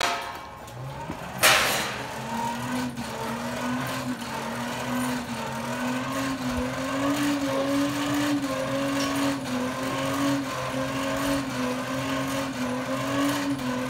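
Hand-cranked forge blower being cranked: a steady whirring hum that wavers a little in pitch with the cranking speed and stops near the end. It comes after a sharp clatter about a second and a half in.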